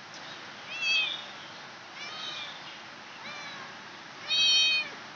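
Newborn kitten mewing: four short, high-pitched cries about a second apart, the last one the loudest.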